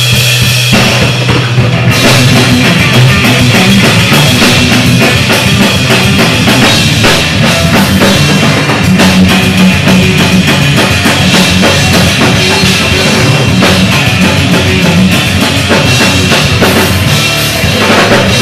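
Live heavy metal band playing loud with electric guitars and a drum kit, an instrumental passage with no vocals; the full band comes in about a second in.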